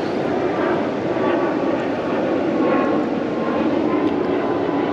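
Water pouring through a big river weir: a steady rushing roar with no breaks.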